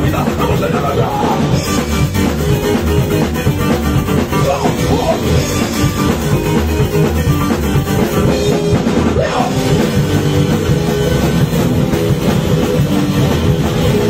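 Live rock band playing loud and without a break: electric guitar, bass guitar and drum kit.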